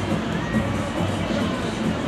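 Music over the stadium loudspeakers, mixed with crowd noise and cheering from the stands.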